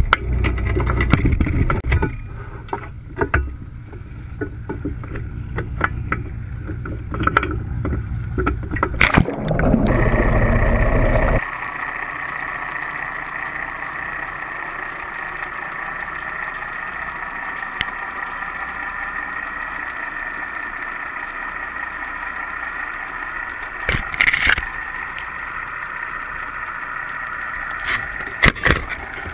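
Knocks and wind rumble as a GoPro-mounted CTD instrument is handled on a boat deck, then a loud rushing splash about nine to eleven seconds in as it goes into the sea. The sound then turns muffled: a steady underwater hum with a high whine heard through the camera housing, with a few short knocks later on.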